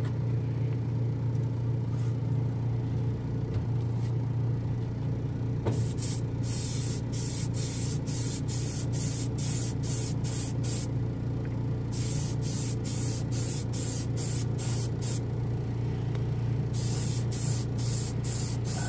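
Airbrush spraying metallic lacquer: from about five and a half seconds in, hissing air comes in three runs of quick on-off pulses. A steady low machine hum sits underneath.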